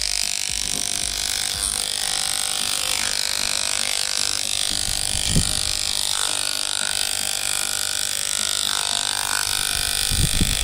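Corded electric hair clipper running steadily as it trims a dog's thick coat, its blades buzzing, with a short low knock about halfway through and two more near the end.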